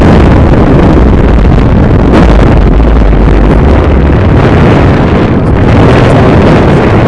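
Strong wind buffeting the microphone high up on a parasail: a loud, unbroken, rumbling rush with no let-up.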